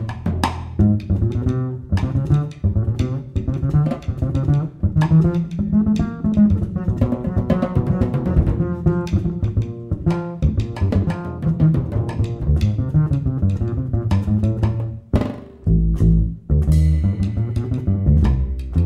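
Jazz double bass played pizzicato, its low plucked notes to the fore, with a drum kit keeping time on cymbals and drums.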